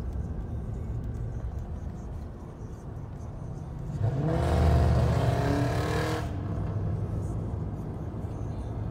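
Steady road rumble heard inside a moving car. About four seconds in, a car engine revs up loudly with a rising pitch, holds for about two seconds, then drops back to the rumble.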